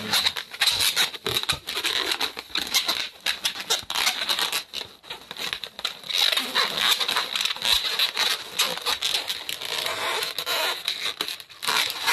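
Inflated latex twisting balloons squeaking and crackling as they are twisted and wound around each other by hand: a dense, unbroken run of rubbery squeaks and rubs that eases briefly near the end.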